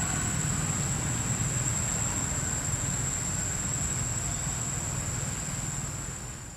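Steady forest ambience: a continuous high-pitched insect drone over a low rumble, fading out near the end.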